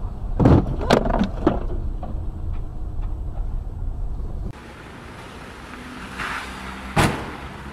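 Heavy road rumble inside a moving car, with several sharp knocks in the first second and a half. The rumble cuts off about four and a half seconds in, leaving a quieter hiss, and a single loud crash of a car collision comes near the end.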